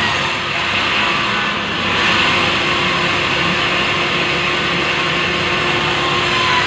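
Sawmill band saw running steadily while its blade cuts lengthwise through a large log of soft wood, a constant even noise with no breaks.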